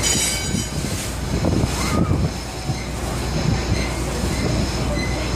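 Steamboat underway: steady mechanical running of its steam engine and machinery, with irregular knocks and a brief high squeal about half a second long at the start.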